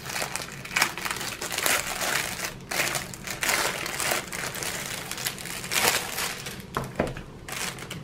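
Clear plastic wrap crinkling in irregular bursts as it is pulled off a rolled diamond painting canvas.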